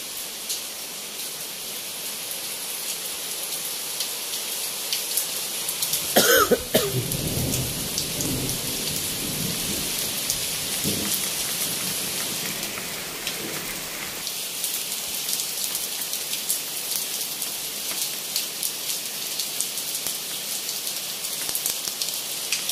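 Heavy rain falling steadily, a dense hiss of drops on surfaces. About six seconds in there is a sudden loud burst that trails off into a low rumble lasting two or three seconds.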